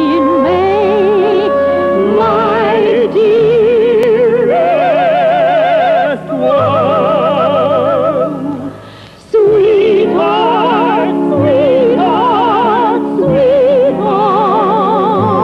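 Background music: an operatic melody sung with wide vibrato over sustained accompaniment, with a brief pause between phrases about nine seconds in.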